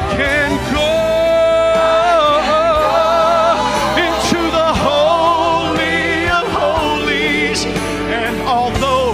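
A mixed gospel vocal quartet of men and women singing in harmony with vibrato over instrumental accompaniment. One long note is held from just under a second in to about two seconds in.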